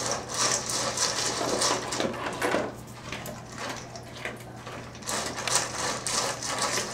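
Dry dog kibble being handled and eaten: irregular small clicks, rattles and rustles of the hard pellets.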